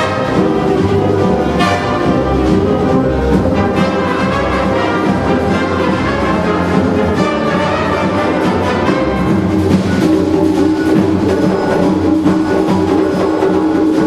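Wind orchestra of woodwinds, brass, percussion and double basses playing live, with the brass prominent and regular percussion strikes.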